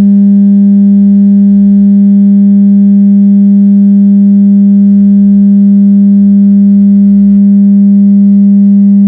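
Loud steady 200 Hz tone, set to the natural frequency of the bottles to make them resonate. The tone holds one pitch, with faint overtones above it.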